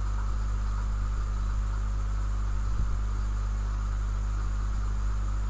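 Steady electrical mains hum with hiss from a computer recording microphone, with a faint high whine above it; one soft click about halfway through.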